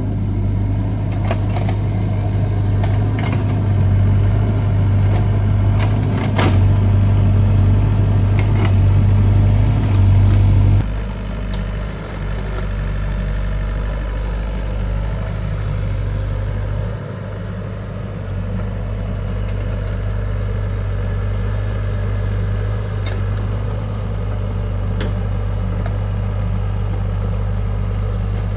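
Excavator's diesel engine running under load, with a few sharp clanks, then dropping suddenly to a lower, steady idle about eleven seconds in.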